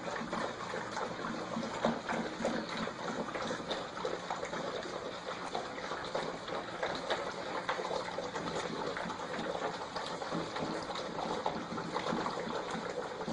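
A litter of puppies eating together, lapping and slurping: a steady wet smacking with many small clicks.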